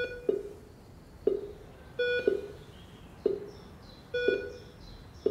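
Hospital bedside patient monitor beeping: a short pitched tone about every two seconds, with a sharper tick about once a second in between.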